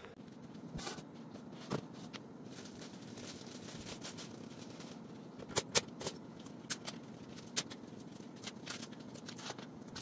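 Handling noise: scattered sharp clicks and light taps of objects being handled, loudest as a close pair about halfway through, over faint steady room noise.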